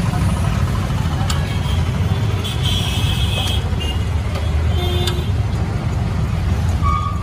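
Steady street traffic: road vehicles running as a constant low rumble, with a few sharp clicks and brief high tones over it.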